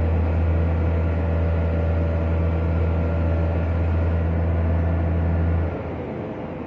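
Crane engine running steadily with a deep, even hum, then dropping off abruptly near the end.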